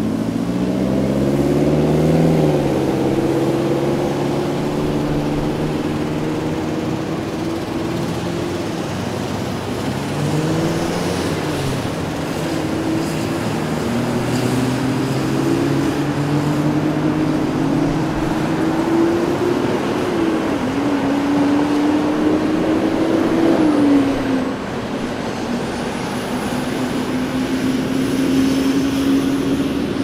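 Downtown city street traffic: the engines of passing vehicles rise and fall in pitch as they accelerate and ease off, over steady road noise. One engine pulls up about a second in, another climbs between about 14 and 20 seconds in, and its pitch drops sharply about 24 seconds in.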